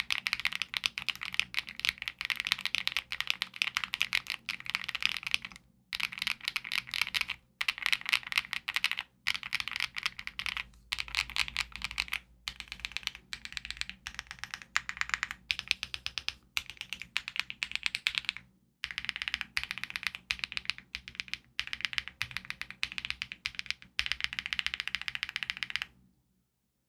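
Fast typing on a mechanical keyboard fitted with Akko linear-style switches (Mirror or Stellar Rose): dense runs of keystroke clacks broken by a few brief pauses. It stops shortly before the end.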